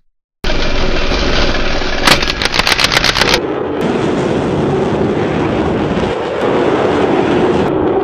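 Cinematic sound effects for an armoured flying suit: a sudden loud burst of noise about half a second in, then a rapid rattle of about ten sharp clacks over a little more than a second, then a steady rushing jet-thruster roar with a low hum.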